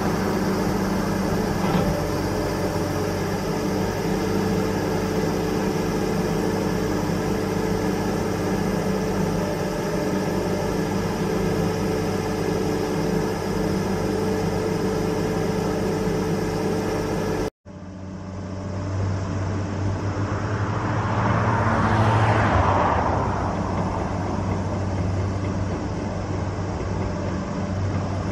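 Steady engine drone from the heavy machinery on a river excavation work boat carrying a Hitachi EX1100-based excavator, heard across the water. The sound cuts about two-thirds of the way in. After that a low hum goes on, and a rushing noise, like a passing road vehicle, swells and fades.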